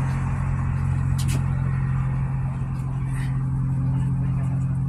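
An engine idling steadily, a constant low drone, with a short sharp click about a second in.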